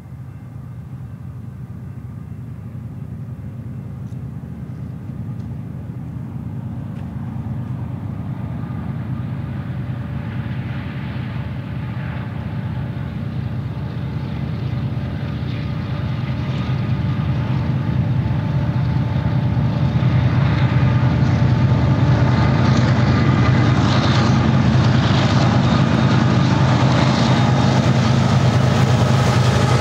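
Union Pacific EMD SD70AH diesel-electric locomotive approaching and passing at the head of a train of auto-rack cars. A steady diesel engine drone grows louder over about twenty seconds and then holds, joined in the later part by the rumble of steel wheels on rail as the locomotive goes by and the cars follow.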